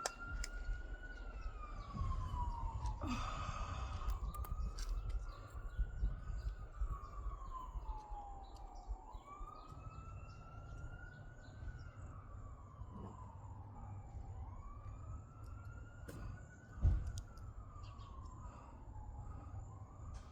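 Emergency vehicle siren wailing, each cycle rising quickly and falling slowly, about every four seconds. There is a low rumble underneath, a short rustle about three seconds in, and a single sharp knock near the end.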